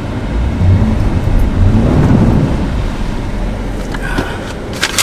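Off-road vehicle's engine revving under load with a heavy low rumble that swells and eases, as the rig works through deep snow and bogs down.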